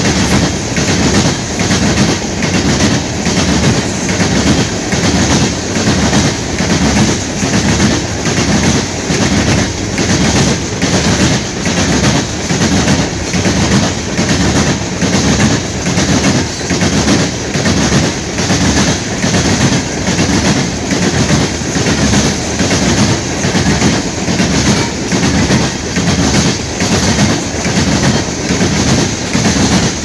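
Freight train of tank cars rolling past, the wheels clacking over rail joints in a steady, rhythmic clickety-clack.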